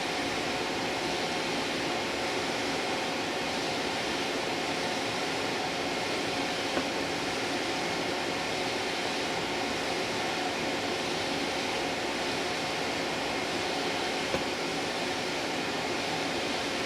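Steady fan-like background noise with a faint steady hum-tone running through it, and two small clicks, about seven and fourteen seconds in.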